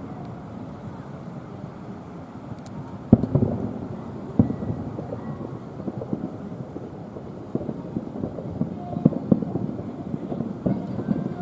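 Distant fireworks shells bursting in irregular booms that roll on like thunder, the sharpest about three seconds in, over a low wind rumble on the microphone.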